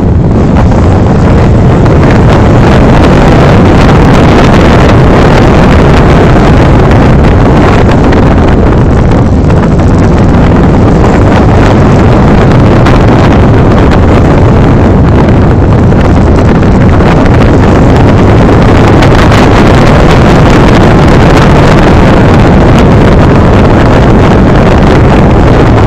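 Loud, steady wind buffeting the microphone of a camera on a moving motorcycle, with the motorcycle's engine running underneath.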